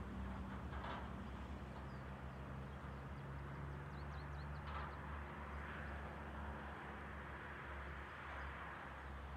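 Quiet outdoor ambience: a distant engine's steady low hum under a soft hiss, with a few faint bird chirps about four seconds in.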